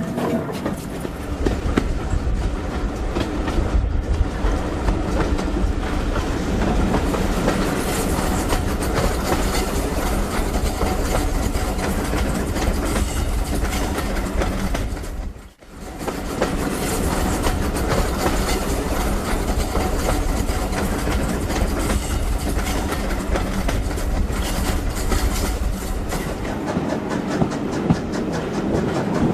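Heritage railway train running on the line: the steady rumble and clatter of coach wheels over the rails. It cuts out briefly about halfway, then carries on.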